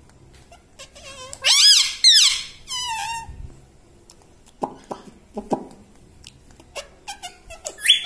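Male rose-ringed parakeet calling: three loud, rising-and-falling calls in quick succession about a second and a half in, the last ending in a quick trill, then a few softer, shorter sounds and faint clicks.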